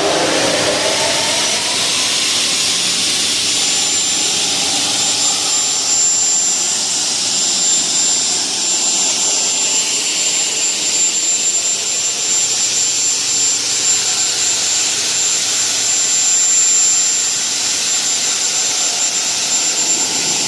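Motor of a CNC single-head aluminium cutting saw spinning up, its pitch rising over the first couple of seconds. It then runs at speed with a steady high whine over a loud hiss.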